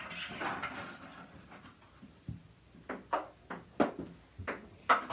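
A ping-pong ball knocking back and forth in a rally, bouncing on the table and being struck with improvised paddles. About three seconds in it becomes a run of sharp clicks, roughly a third to two-thirds of a second apart.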